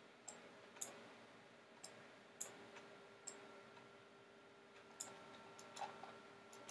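Faint computer mouse clicks: about eight short, sharp clicks at irregular intervals, over a faint steady electrical hum.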